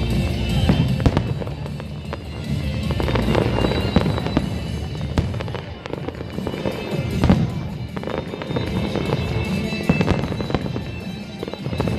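Aerial fireworks shells bursting in quick, irregular succession, many sharp bangs with music playing underneath.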